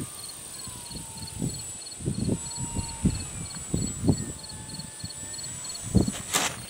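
Insects trilling steadily with a regular pulsed chirp, while wind gusts buffet the microphone in repeated low rumbles. The faint thin whine of the foam RC airplane's electric motor drifts slowly in pitch, and a sharp crackle comes near the end.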